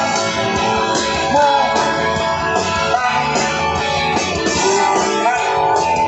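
Rock band playing live through a stage PA, with electric guitars and drums.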